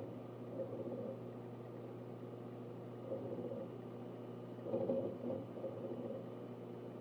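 Synology DS1821+ eight-bay NAS running, with a steady low hum from its fans and spinning drives. Short, irregular bursts of hard-drive seek chatter come about half a second in, around three seconds in, and loudest near five seconds.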